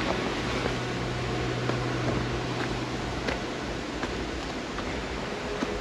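Footsteps on a steep dirt trail with roots and leaf litter, faint short steps every half second to a second, over a steady hiss. A low steady hum stops about four seconds in.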